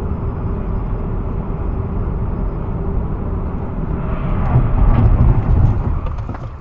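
Steady road and engine noise inside a moving car, picked up by a dashcam on a highway. It grows louder for a second or two about four seconds in.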